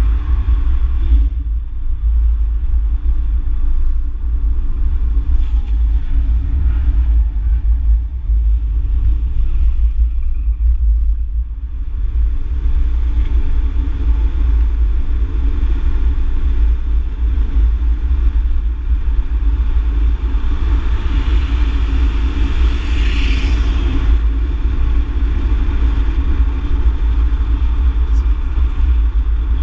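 Car's engine and road noise heard from inside the cabin while it is driven round a race track: a loud, steady low rumble, with a brighter hiss swelling and fading about twenty seconds in.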